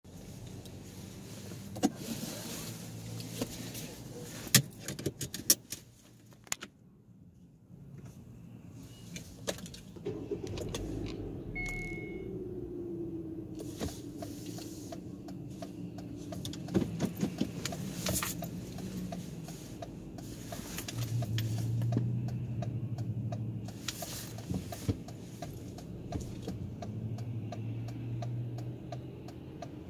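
Sounds inside a car cabin: scattered clicks and handling noises, then a low running hum with a steady light ticking about twice a second.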